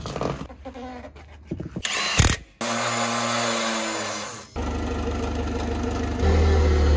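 A power tool whirs steadily for about two seconds. Then a Caterpillar forklift's engine runs with a steady low hum, getting louder about six seconds in.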